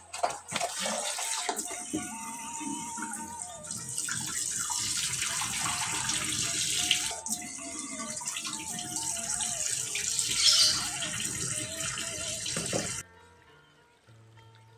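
Tap water running into a plastic colander of chopped vegetables in a stainless steel sink as hands rinse them; the rushing stops abruptly near the end. Background music with a simple melody throughout.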